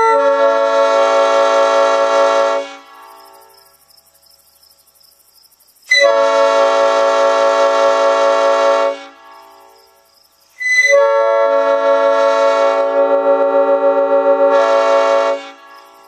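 Nathan P5 five-chime air horn, freshly cleaned and refurbished, blown on 60 psi compressed air. It gives three long blasts of a steady multi-note chord. The first is already sounding and stops about 3 seconds in, the second runs from about 6 to 9 seconds, and the third, the longest, from about 11 to 15 seconds.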